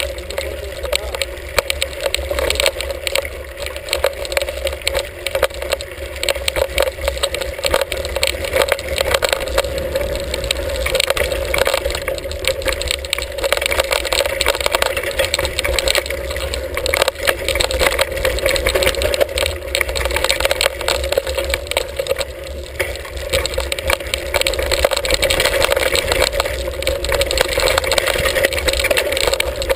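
Hardtail mountain bike rolling fast down a rough dirt singletrack, heard through a handlebar-mounted camera: a loud, steady rumble of wind and tyres with constant rattling clicks from the bike.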